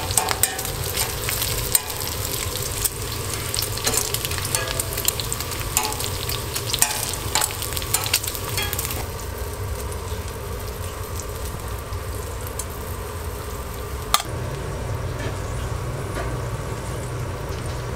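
Bacon frying in its fat on a flat-top griddle, with dense crackling and popping. About halfway through the crackle gives way to a quieter, softer sizzle, and a single sharp click sounds near the end.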